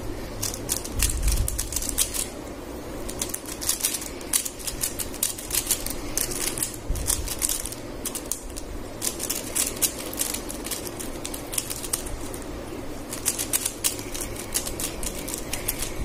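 A 3x3 Rubik's cube being turned fast by hand. Its plastic layers click and clatter in quick bursts of turns, with short pauses between the bursts.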